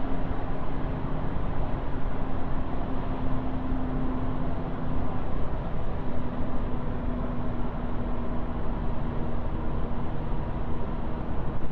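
Car driving with steady road noise and a droning hum from a worn front wheel bearing; the hum dips slightly in pitch about halfway through.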